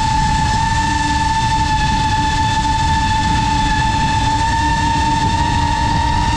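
FPV racing drone's motors and propellers whining at a steady high pitch in flight, over a rushing of wind and prop wash; the pitch edges up slightly near the end.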